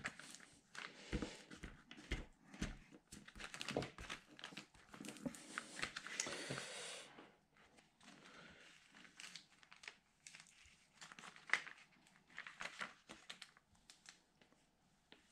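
Clear plastic transfer tape crinkling and crackling under the hands, first rubbed down over a vinyl decal on a wooden plaque, then peeled back off the wood.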